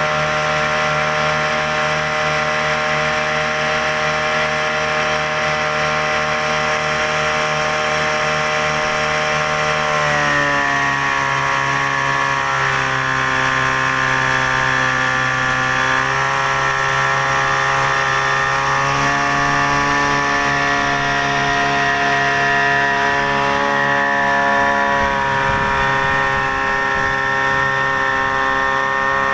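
Yamaha 8 hp outboard motor running steadily while pushing the boat along. Its pitch drops a little about ten seconds in, then shifts slightly a few more times.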